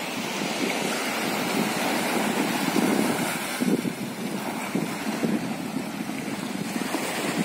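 Small waves washing onto the shore, with a moderate wind buffeting the microphone in irregular gusts.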